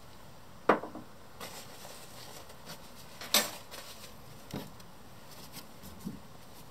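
Modelling supplies such as paint bottles and a small metal palette dish being handled on a worktable. There are scattered clicks and light knocks, two sharp louder ones about a second in and near the middle, with soft rustling between them over a faint steady hiss.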